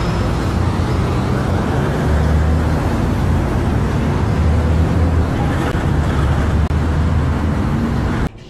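Loud, steady rumble of highway traffic, heavy in the low end, cutting off suddenly near the end.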